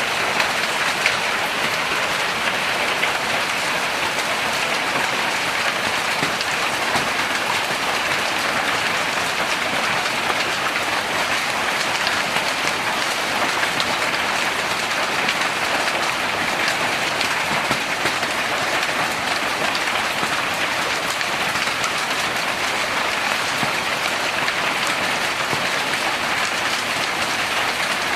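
Hailstorm: rain and hailstones pelting down, a dense steady hiss made of countless small impacts.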